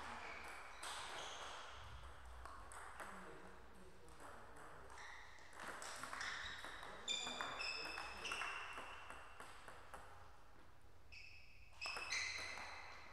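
Table tennis rally: the ball clicking back and forth off the bats and the table. Short high-pitched pings and squeaks come in clusters about halfway through and again near the end.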